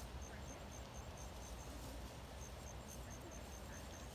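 An insect chirping faintly: short high pips about four a second, pausing for over a second in the middle and then going on, over a low rumble.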